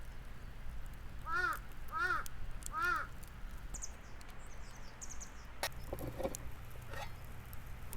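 Crow cawing three times, about 0.7 s apart. A small bird chirps faintly after the caws, and a few sharp clicks or snaps come in the second half.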